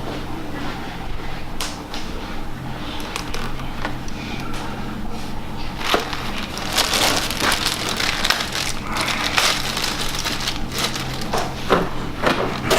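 Packaging being handled: scattered crackles, then dense crinkling and crackling from about halfway through, over a steady low hum.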